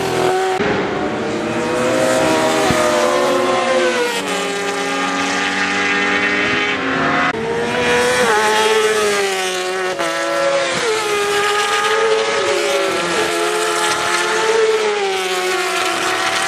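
British Superbike racing motorcycles lapping the circuit, their engines revving hard with no break. The engine notes climb and fall and step sharply at gear changes as bikes accelerate and brake past.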